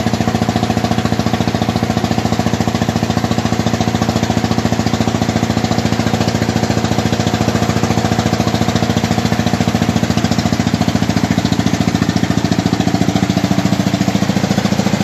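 Wooden ferry boat's engine running steadily under way, a loud, fast, even pulsing with a deep hum.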